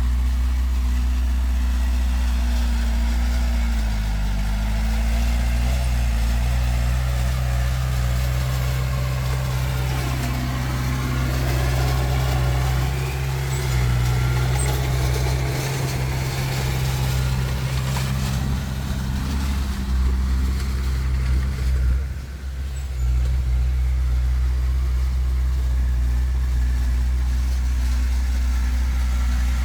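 Heavy diesel engine of earthmoving machinery running steadily. Its pitch dips and shifts about four seconds in and again between ten and fourteen seconds, and it drops briefly near twenty-two seconds.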